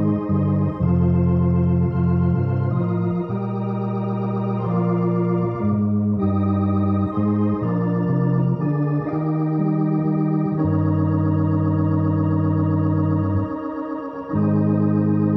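Electronic organ playing a hymn in held chords through its cabinet's built-in spinning rotary speaker. The level dips briefly near the end.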